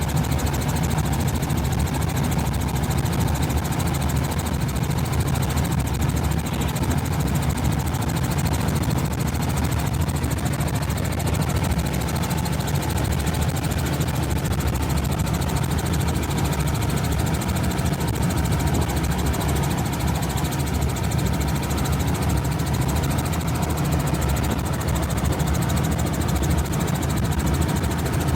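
An engine running steadily with a fast, even pulse, unchanging throughout.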